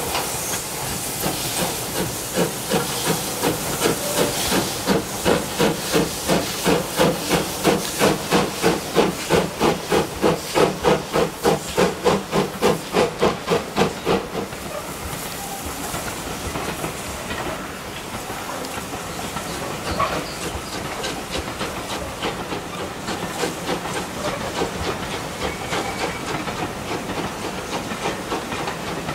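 Caledonian Railway 0-6-0 steam locomotive No. 828 chuffing as it hauls a train away, with strong, even exhaust beats about two to three a second and a hiss of steam. About halfway through the beats fade, leaving the rolling rumble and clatter of the carriages going past.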